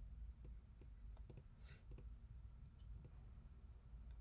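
Faint computer mouse clicks, several of them scattered irregularly, against near silence.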